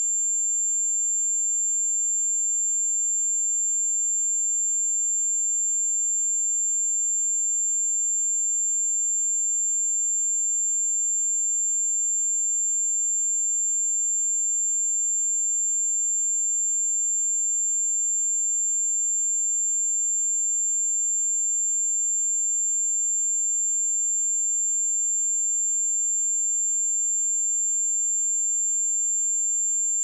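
A steady 7302 Hz sine-wave test tone: one pure high-pitched whistle held at a constant pitch and level.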